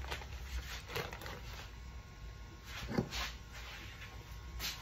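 Kitchen handling noises from someone moving about off-camera: a few light knocks and clicks, the loudest about three seconds in, over a low steady hum.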